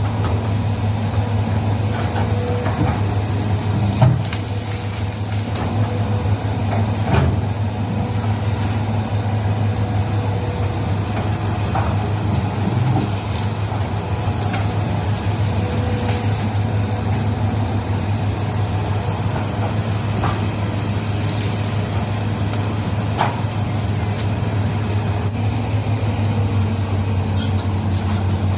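Hitachi hydraulic excavator's diesel engine running steadily under working load, with a high hiss that swells and fades and occasional sharp knocks and clanks, the loudest about 4 and 7 seconds in.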